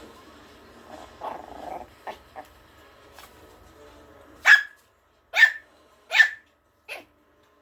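Small dog growling briefly, then barking four times in quick succession, high-pitched and sharp, the last bark shorter and weaker, as dogs do in play-fighting.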